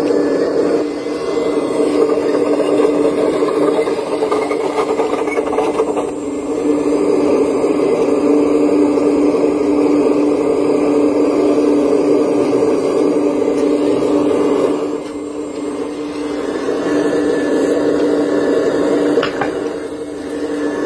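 Radio-controlled scale model of a Liebherr 970 excavator working, its motors and gearing giving a steady mechanical whir that eases off briefly a few times as the arm and bucket move.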